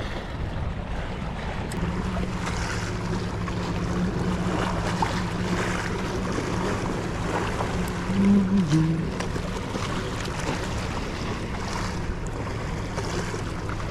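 Sea waves and wind noise on the microphone over a steady low engine hum. About eight seconds in there is a brief louder vocal sound.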